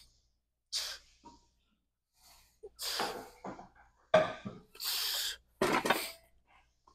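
A person's heavy breathing from exertion: a string of sharp, forceful breaths and gasps, with the loudest about four seconds in.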